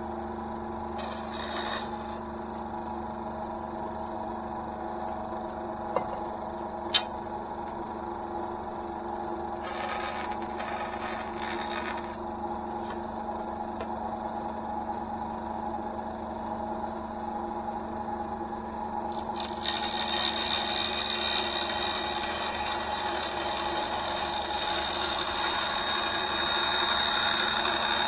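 Einhell TC SB 200/1 bandsaw running with a steady hum, its blade cutting plywood in three spells: briefly about a second in, for about two seconds near the middle, and steadily through the last eight seconds or so. Two sharp clicks about six and seven seconds in.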